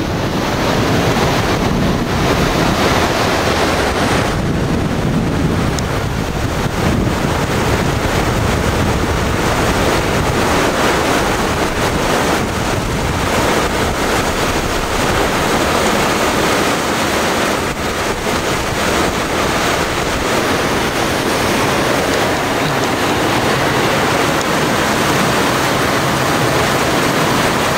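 Steady wind buffeting the microphone over a constant rush of water.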